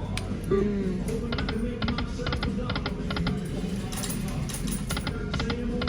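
Dragon Link video slot machine clicking as its reels spin and stop: short sharp electronic ticks in quick groups, about two a second, over faint wavering tones and a steady low background din.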